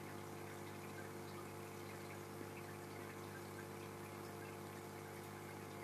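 Steady hum of an aquarium pump and filter, with faint water noise from the tank.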